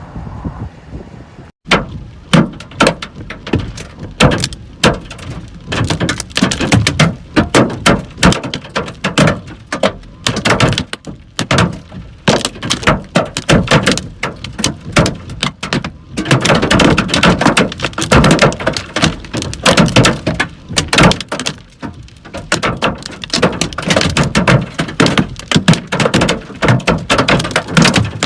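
Hailstones pelting a hard surface: a dense, irregular clatter of impacts that starts abruptly about a second and a half in and grows heaviest past the middle.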